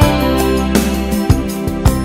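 Instrumental pop music: piano over a sustained bass line and a steady drum beat.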